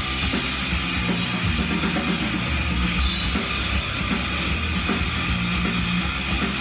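Heavy rock instrumental playing from a vinyl record on a turntable: a drum kit with heavy guitar and bass, no vocals.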